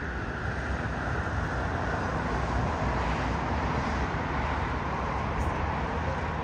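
Steady rumble and hiss of distant jet airliner engines and airport ground noise, swelling slightly about two to three seconds in.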